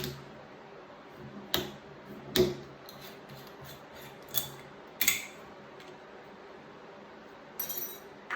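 Kitchen handling sounds: about five sharp knocks and clinks of hard objects against glass and tableware, spaced unevenly, then a brief ringing, jingling rattle near the end.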